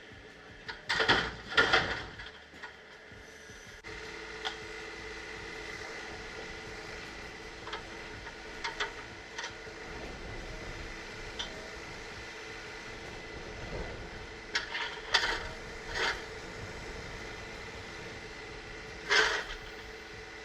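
Machinery running with a steady whine, with sharp knocks and clanks at intervals. The loudest clanks come about a second in, around fifteen seconds in and near the end, and the steady tone changes abruptly about four seconds in.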